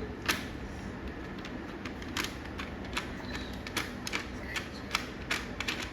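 Irregular small clicks and taps of hard plastic helmet parts and a visor-mount bolt being handled and fitted by hand.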